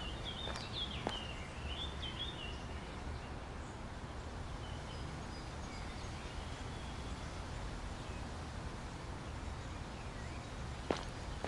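Outdoor park ambience. Birds chirp for the first two seconds or so, with fainter calls a few seconds later, over a steady low background rumble. A couple of footsteps on a dirt path come near the start and one near the end.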